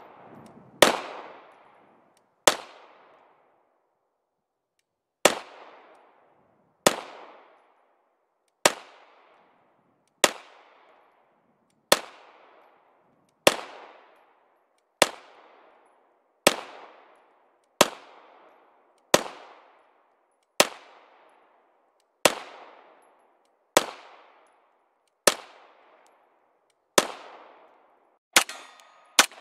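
Canik TP9SF 9mm pistol firing slow, deliberate single shots, about one every second and a half with a short pause after the second, each shot trailing off in an echo.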